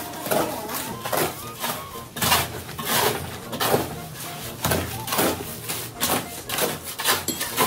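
Shovel scraping and slapping through wet lime-surkhi mortar on a floor as the batch is mixed, in repeated strokes about once or twice a second.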